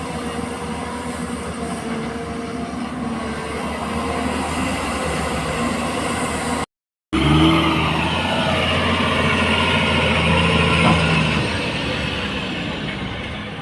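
Diesel engine of a JCB 4DX backhoe loader running steadily under working load. The sound breaks off for a split second about seven seconds in, and right after it the engine note shifts in pitch as it revs.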